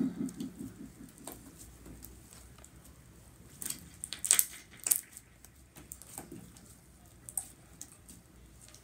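Slime being squeezed, folded and pressed flat by hand, giving scattered sharp wet clicks and pops, the loudest ones clustered about halfway through.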